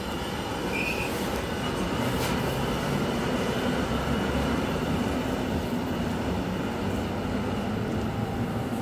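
Koleje Mazowieckie EN71KM electric multiple unit pulling out of a station: a steady low hum with the rumble of wheels on the rails as the train draws away, with a brief high squeak about a second in.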